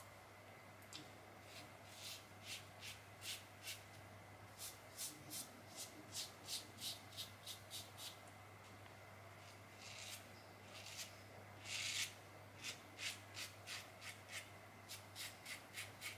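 Feather Artist Club SS shavette blade scraping through lathered stubble: quiet, short rasping strokes, about two or three a second, in two runs with a brief pause around the middle.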